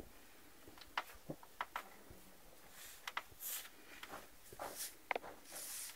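Faint scattered light clicks and taps mixed with a few short rustles: handling and movement noise of someone moving about the room.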